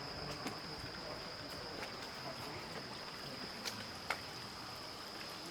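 Night outdoor ambience: a steady high insect trill over a hiss of running water, with a couple of faint clicks about three and a half and four seconds in.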